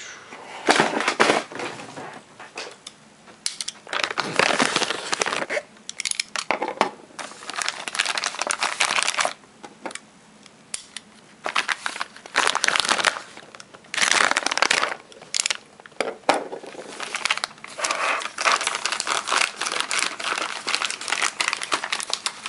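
White mailer bag crinkling and crumpling in irregular bursts as it is handled, cut open with a utility knife and torn, with short pauses between bursts.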